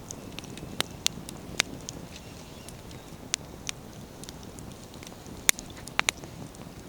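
Wood campfire crackling, with scattered sharp pops of burning firewood, the loudest about five and a half seconds in and a quick pair just after, over a low steady rush.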